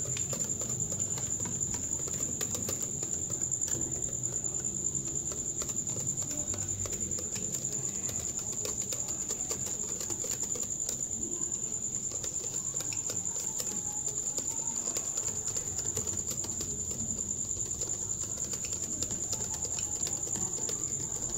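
Hand stirring with a metal utensil in a glass bowl of thick egg and dry-milk batter: many light clicks and scrapes against the glass. A steady high-pitched cricket trill runs under it and is the loudest sound.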